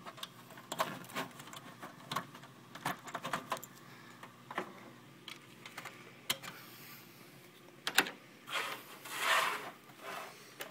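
Handling clicks and knocks as cables are unplugged from the back of a small computer: a VGA connector's thumbscrews are loosened and its plug pulled out. A sharp click about eight seconds in, then a brief rubbing sound.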